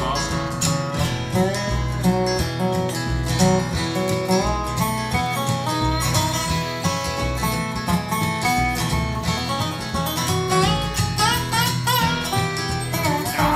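Instrumental break in a bluegrass song on acoustic guitar, a lap-played resonator guitar (dobro) and upright bass, with no singing. The resonator guitar plays sliding notes, most plainly near the end, over steady guitar strumming and a walking bass.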